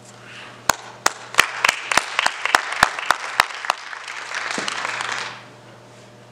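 Short round of audience applause: one nearby clapper's sharp claps stand out at about three a second over the softer clapping of the rest, and it dies away about five seconds in.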